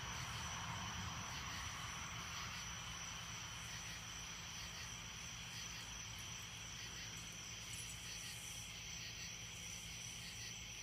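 Night-time insect chorus, crickets trilling steadily with a constant high-pitched ring, over a low steady hum.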